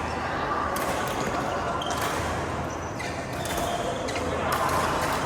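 Badminton rackets striking a shuttlecock in a rally: a string of sharp hits about once a second over a steady low hum and background noise.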